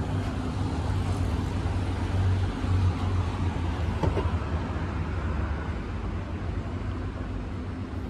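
A steady low engine rumble from the Mahindra Bolero Neo SUV idling, with road traffic behind it.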